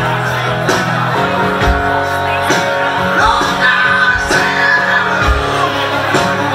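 Live country band music: acoustic guitar played over a steady beat.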